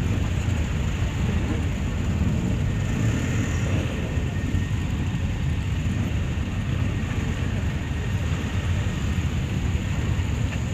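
Honda CB500's parallel-twin engine running at low speed among many other idling motorcycles: a steady low rumble.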